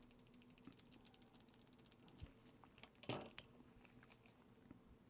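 Faint, rapid light clicking of small hand tools working on a metal watch case and bracelet, with one louder brief scrape or knock about three seconds in.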